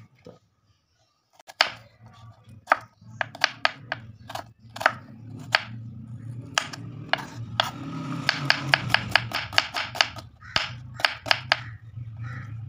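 Kitchen knife chopping a red onion on a wooden cutting board, the blade knocking on the wood. Spaced, irregular cuts start about a second and a half in, then a quick even run of about five strokes a second.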